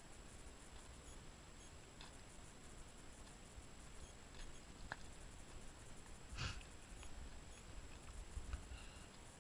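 Faint, quiet background with a few light clicks, and one short breathy snort from the ridden horse about six seconds in.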